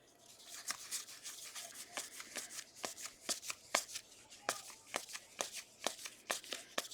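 Football trading cards being flipped through by hand, a quick run of light snaps and slides as each card is pushed off the stack, with soft rustling between them.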